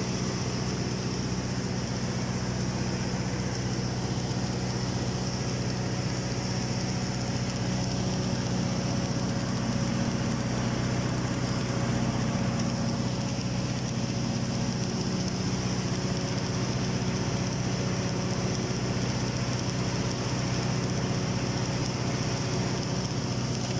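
Automatic girth welding machine running steadily on a tank's horizontal seam during submerged arc welding: a constant hum with an even hiss over it.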